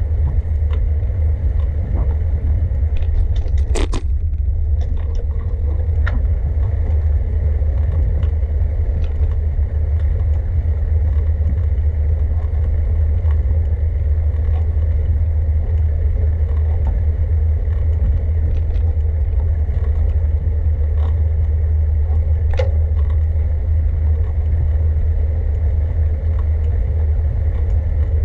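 Riding noise from a camera on a moving bicycle: a steady low rumble of wind and road vibration on the microphone, with scattered light clicks and rattles from the bike, the sharpest about four seconds in.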